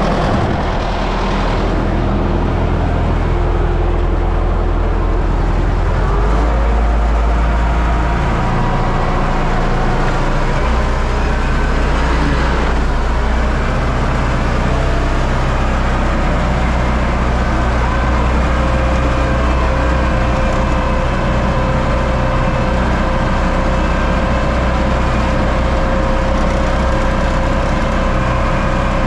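Universal U650 tractor's four-cylinder diesel engine running steadily while pulling a seed drill. Its note shifts a couple of times in the first ten seconds, with a thin steady whine above it later on.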